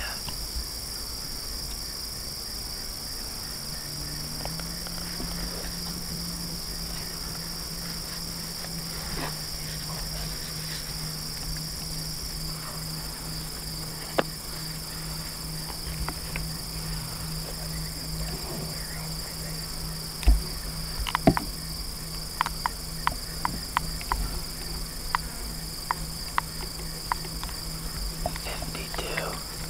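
A dense chorus of field insects, crickets among them, chirring steadily in one high band. A low steady hum sets in about four seconds in, and in the last third a series of sharp clicks and ticks sounds close by.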